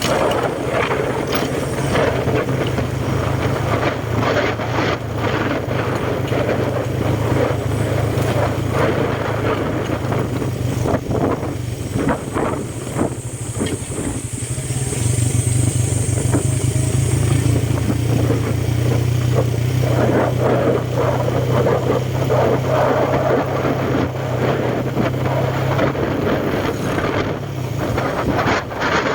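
A motor vehicle's engine running steadily at a constant low pitch, with rattles and knocks from the ride over it.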